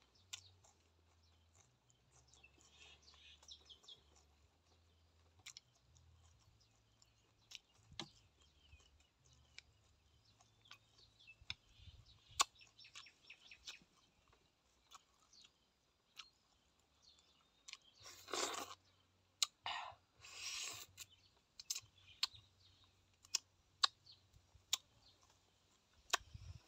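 Close-up chewing of boiled egg, with wet mouth clicks and smacks scattered throughout and two louder bursts about two-thirds of the way through. Small birds chirp faintly in the background.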